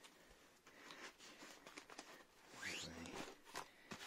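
Faint rustling and scraping of cardboard packaging being handled and slid, with a longer scrape a little before three seconds in.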